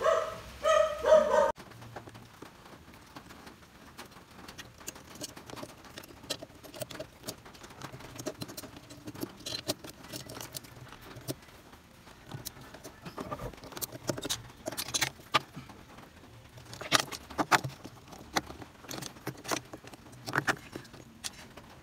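Scattered small clicks, taps and rattles of hands working the park-light bulb socket and wiring inside a 2017 Hyundai Accent's headlight housing, with denser bunches of clicks near the end.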